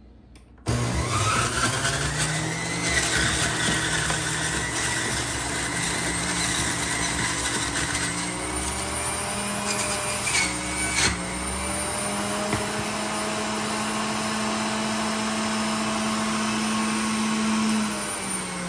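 Hamilton Beach centrifugal juicer switched on under a second in, its motor spinning up with a rising whine and then running steadily. A couple of knocks come about halfway through, and the motor's pitch drops near the end.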